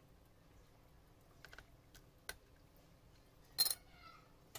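A few light clicks and taps of a laptop processor being lifted out of its mainboard socket and set down on a workbench, the sharpest tap about three and a half seconds in.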